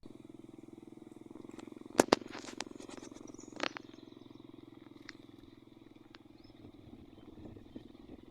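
Frogs calling steadily in a fast, even pulsing trill. Two sharp, loud clicks come about two seconds in, with a fainter one a second and a half later.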